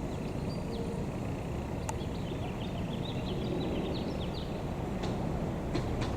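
Steady low rumble of a vehicle engine running, with a bird chirping in a quick run of short high notes in the middle and a few light clicks near the end.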